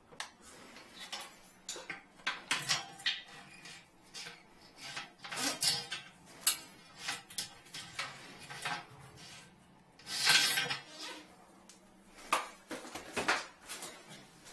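Scattered clatter and knocks of hard objects being handled: tools, inspection-camera gear and the porcelain toilet bowl. A short rushing noise lasting about a second comes about ten seconds in.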